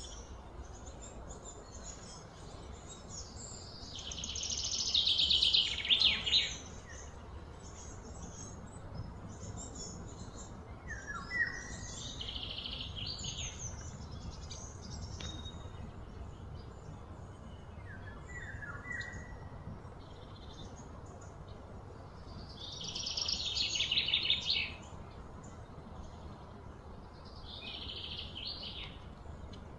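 Birds calling: a few loud, rapid trilled phrases of two to three seconds each, strongest about five seconds in and again near twenty-four seconds. Short, lower falling chirps come between them, over a steady low background rumble.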